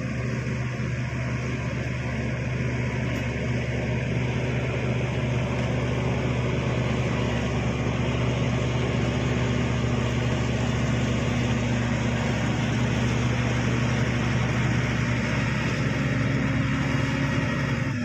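Crawler bulldozer's diesel engine running steadily with a low, even drone as the dozer tracks forward and pushes soil with its blade, gradually getting a little louder.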